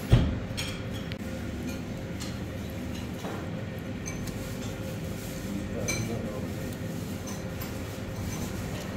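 A sharp clink of a china plate against a metal serving tray just at the start, then a few faint clinks over a steady background hum.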